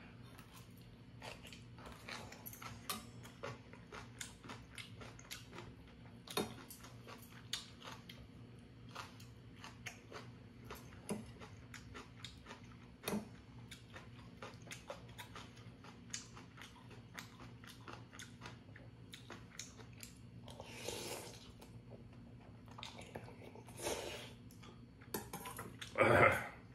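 Close-miked eating of ramyeon noodles: steady chewing with many small wet clicks and smacks. A few longer, louder mouth sounds break in near the end, the loudest just before it ends.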